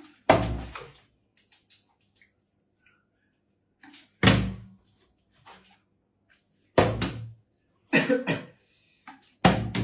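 A flipped plastic bottle thudding down on a hard surface again and again, about five times, each flip failing to land upright.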